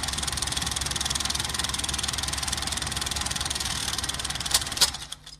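Film projector running as an intro sound effect: a fast, even mechanical clatter over a low hum. It ends with two sharp clicks about four and a half seconds in and cuts off just after.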